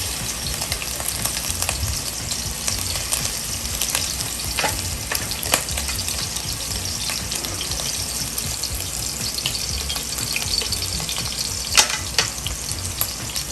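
Pork-and-beef meatballs sizzling in hot oil in a skillet over medium heat: a steady crackling hiss with a few sharper clicks and pops.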